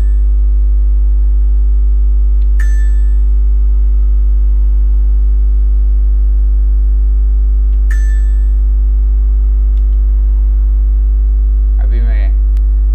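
Loud steady electrical mains hum with a ladder of overtones, picked up by the recording setup. Two sharp clicks with a short ring come about two and a half seconds in and again about eight seconds in, and a brief voice sound comes near the end.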